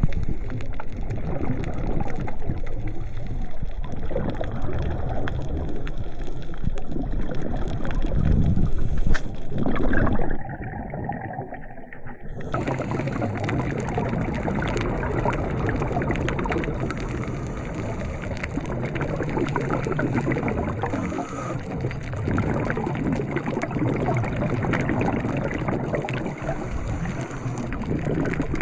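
Underwater audio from an action camera: steady muffled water noise with bubbling and gurgling. A louder rush of bubbles comes about nine seconds in, then the sound goes dull and quieter for a couple of seconds before the steady noise returns.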